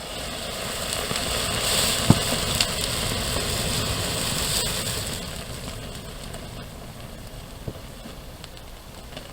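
About 400 grams of thermite burning around a brass padlock: a rushing hiss with crackling and a few sharp pops, building over the first couple of seconds, then dying down after about five seconds.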